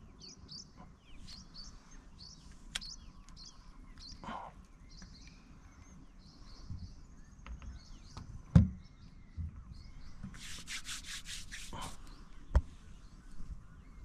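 Small birds chirping in short repeated calls, mostly in the first half. A sharp knock about eight and a half seconds in is the loudest sound, with a fainter knock near the end and a quick rattling run of clicks a little before it.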